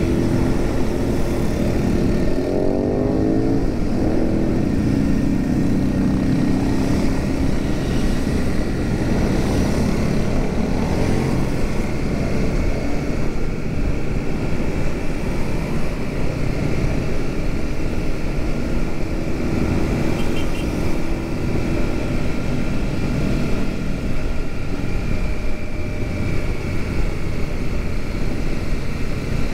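Royal Enfield Super Meteor 650's parallel-twin engine running at cruising speed, heard from the saddle under strong wind rush, with a brief shift in engine pitch about three seconds in.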